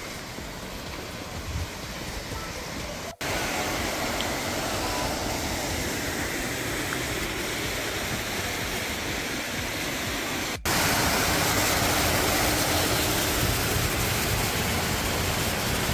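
Creek water rushing over rocks and small cascades, a steady rush of flowing water. It breaks off abruptly twice, at about three and about eleven seconds in, and is louder after each break, loudest in the last part.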